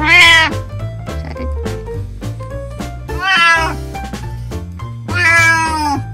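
Elderly house cat meowing three times, each call about half a second long, rising and then falling in pitch. Background music with a steady beat plays under it.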